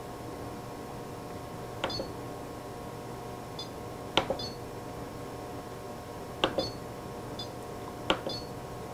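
Electric pressure cooker's control-panel buttons being pressed: four sharp clicks about two seconds apart, each followed by short high electronic beeps as the cook is set to start. A steady low hum runs underneath.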